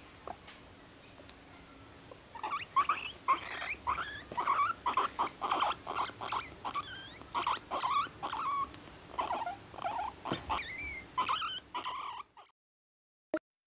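A guinea pig chattering in a long run of short, high squeaks while being stroked, starting about two seconds in and stopping shortly before the end.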